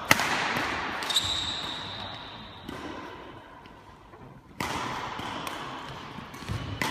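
Badminton doubles rally: sharp racket strikes on the shuttlecock, four in all, each echoing in the large hall. A high squeak of a court shoe on the sports floor is heard about a second in.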